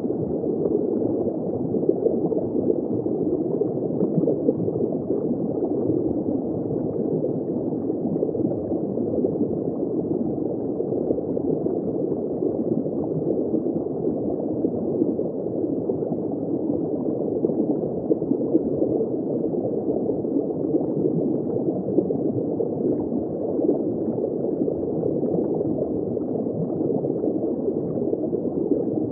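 Steady, muffled underwater noise picked up by a camera in an underwater housing: an even rush with a fine bubbling flicker and no highs. It does not change when the picture cuts.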